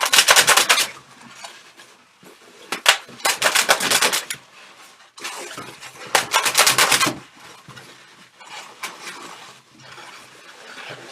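Inflated latex balloons squeaking and rubbing against each other as they are twisted and pressed together, in three bursts of rapid squeaks with quieter handling between.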